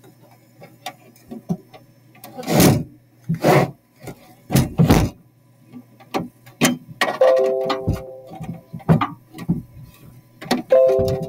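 Several loud thumps, the three biggest about a second apart, over a low steady hum. Later a short held musical chord sounds twice.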